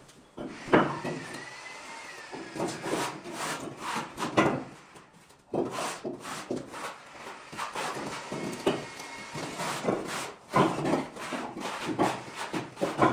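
Trowel spreading and scraping mortar onto a wall: a run of irregular scrapes and knocks, with a sharp knock about a second in.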